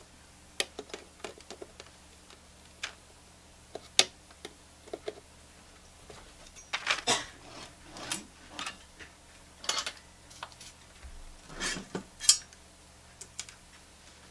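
Hand tools and component leads clicking, tapping and scraping against the metal chassis of a tube radio being rewired. The sounds are scattered single clicks early on, then a few louder scrapes and rattles in the second half.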